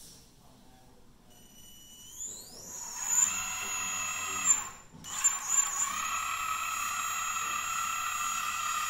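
Hydraulic system's electric motor and gear pump running: a high whine that climbs in pitch as the motor spins up about two seconds in, then holds as a steady pump whine. It stops briefly around five seconds and starts again while the oil is pressurized.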